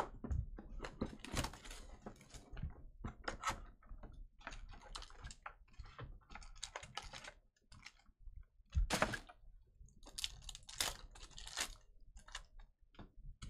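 Trading-card packs being torn open and the cards handled and flicked through: a run of irregular crisp rustles, crinkles and flicks, with a louder burst about nine seconds in.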